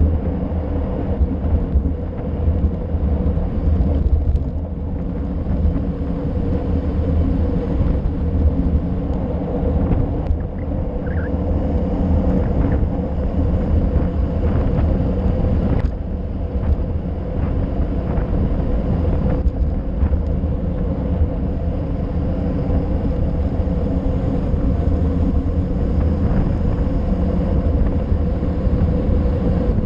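Steady rush of wind and tyre rumble from a road bike descending fast on asphalt, picked up by a handlebar-mounted action camera, with a few brief knocks.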